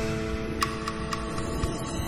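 Soft instrumental background music with held notes and a few light ticks.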